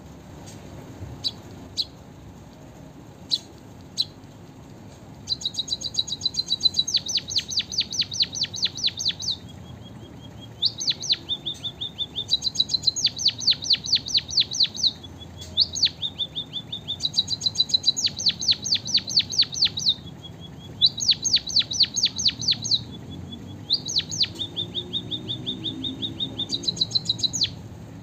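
Caged munia (emprit kaji) singing canary-style song learned from a canary tutor. A few single high chips come first. From about five seconds in it sings long phrases of rapid repeated trilled notes, alternating with held, slightly lower whistles.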